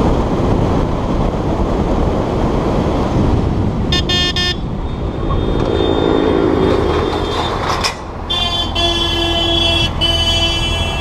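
Motorcycle riding along a road with steady engine, road and wind noise on the microphone. A quick broken burst of horn beeps comes about four seconds in, then three horn honks from about eight seconds on.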